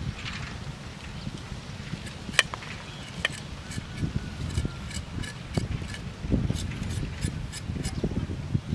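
Cleaver cutting a bitter gourd on a wooden chopping board: irregular light knocks of the blade against the wood, coming thicker from about four seconds in.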